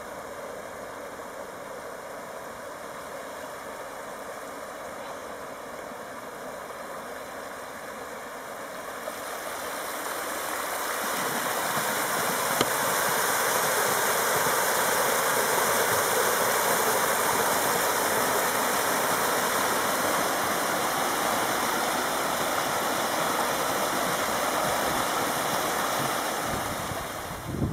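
Geothermal runoff water rushing down a shallow channel over sinter rock, a steady rush that grows louder about ten seconds in and stays loud until near the end.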